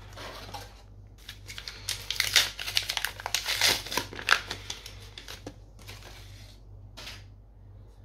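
Crinkling of a plastic booster-pack wrapper as it is handled and torn open, with quick sharp clicks. The busiest stretch is in the middle and it tails off with a softer rustle and one last click.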